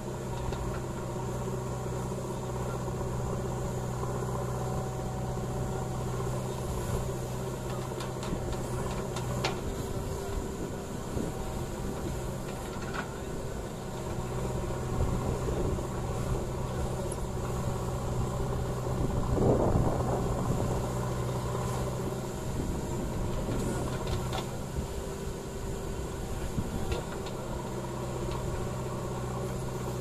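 JCB 3DX backhoe loader's diesel engine running steadily while the backhoe arm digs soil. Its note grows louder and rougher for a moment about two-thirds of the way through as the hydraulics take the load. A few sharp knocks come now and then.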